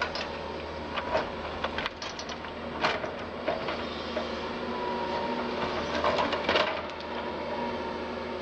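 Doosan DX180 LC excavator's diesel engine running steadily under work, with irregular knocks and cracks as the bucket digs into the ground; the loudest cluster of knocks comes about six seconds in, with a thin whine just before it.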